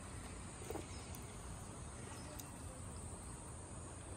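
Steady high-pitched insect buzz, with a few soft taps from a Muscovy duck pecking bait off a wooden deck.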